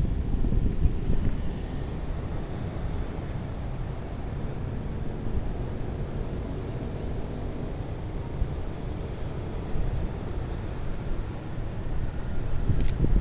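Steady low rumble of outdoor street ambience. A single sharp click comes near the end.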